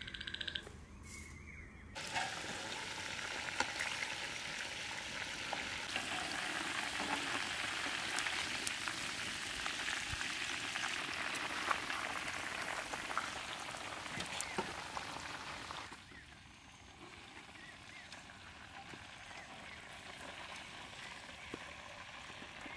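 Masala-coated chicken frying in hot oil: a steady, loud sizzle with scattered crackles, which drops to a quieter sizzle about two-thirds of the way through.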